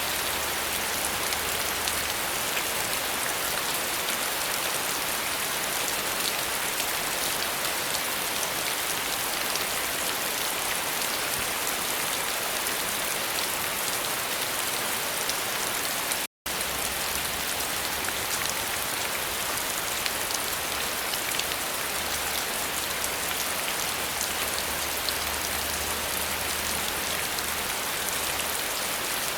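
Steady rainfall, an even hiss with many small drop ticks. It cuts out to silence for a split second about halfway through, then resumes unchanged.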